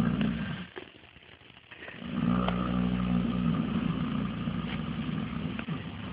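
Young colt snoring in its sleep: a low, rattly snore that ends well under a second in, then a pause, then a longer snore of about four seconds.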